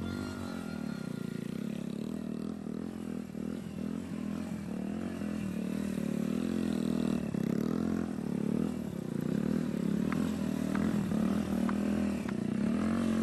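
Suzuki Thunder 125's single-cylinder four-stroke engine, revving up and down over and over as the bike is ridden through wheelies and stoppies. A few light clicks come near the end.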